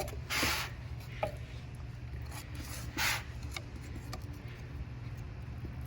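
Metal bar scraping against the skid steer's track undercarriage twice, about three seconds apart, with a light knock between, over a steady low hum.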